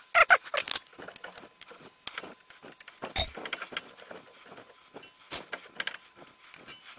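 Honda Civic front brake caliper being handled and shifted on its mounting, making scattered metal clicks and light rattles. One sharp metallic clink comes about three seconds in.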